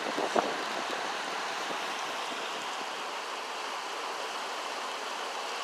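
Fast river water rushing over rocks: a steady wash of noise, with one short sharp knock about half a second in.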